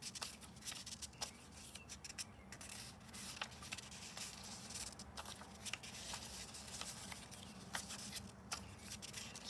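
Paper playing cards being dealt one at a time from a held fan onto two stacks on a cloth-covered table: faint, irregular paper flicks and soft taps as each card is pulled off and laid down.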